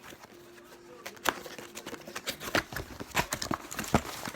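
Packaging being handled and pulled open: irregular sharp clicks and knocks with crinkling, starting about a second in.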